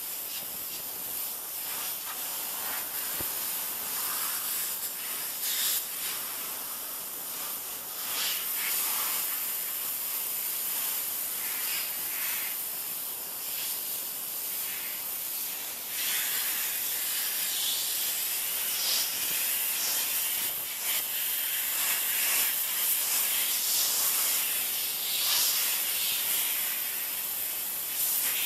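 High-pressure water jet from a 3000 psi pressure washer hissing as it blasts against plastic chairs. The hiss swells and fades as the spray moves over the surface, and it is somewhat louder in the second half. No engine drone stands out beneath it.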